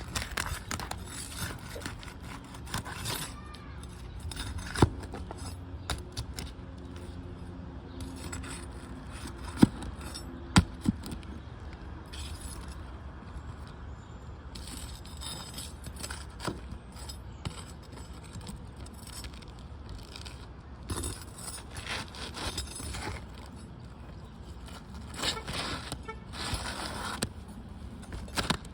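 Irregular scraping and rustling with light clinks of handled tools and material, broken by a few sharp knocks, as someone works on the soft, water-damaged plywood of a trailer's rear slope.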